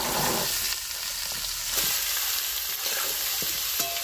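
Chopped bottle gourd and potato sizzling in hot mustard oil in a metal kadhai, with a louder burst as the pieces land at the start that settles into a steady sizzle. A metal spatula clicks against the pan a few times as it stirs.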